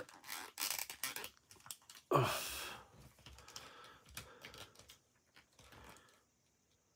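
Faint, scattered clicks and taps of a plastic action figure being handled and fitted in place, with one brief louder rustle about two seconds in.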